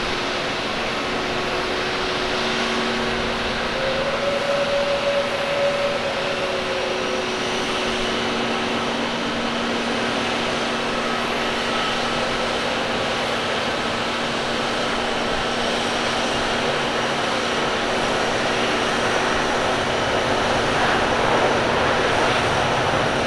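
Airbus A350-900 airliner's Rolls-Royce Trent XWB turbofans on final approach, through touchdown and the landing roll: a steady jet rush with a few faint humming tones, growing a little louder near the end.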